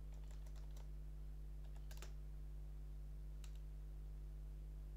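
Computer keyboard being typed on: a few light keystrokes at the start, a sharper single key press about two seconds in and another a little later. A steady electrical hum runs underneath.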